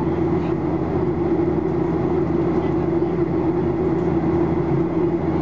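Steady drone of a Boeing 737-800's CFM56-7B turbofan engines in flight, heard inside the cabin, with a strong low hum.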